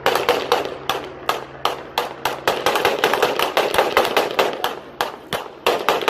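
Volley of about twenty gunshots fired rapidly and unevenly, roughly three a second, as from several firearms, each a sharp crack with a short echo.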